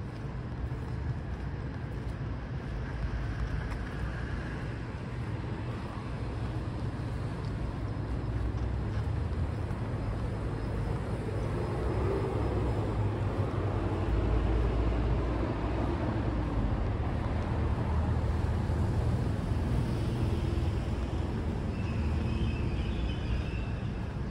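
Road traffic on a city street: a steady low rumble of passing cars that swells in the middle and eases off near the end.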